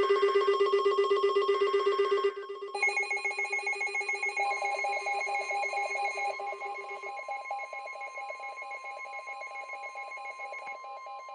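Alarm ringing in a rapid bell-like trill, several pitches at once. It cuts off about two seconds in. A different, higher ringing pattern starts just after and fades slowly, with a steady tone joining it about four seconds in.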